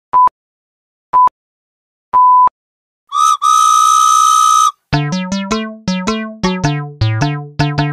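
Added sound effects: short electronic beeps about a second apart, the third one longer, then a loud, steady whistle blast of about a second and a half. About five seconds in, a bright synthesizer tune with plucked notes and a bass line starts.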